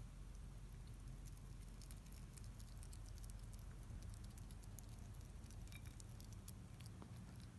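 A hedgehog crunching dry hedgehog kibble, a faint, irregular stream of small quick clicks over a low steady hum.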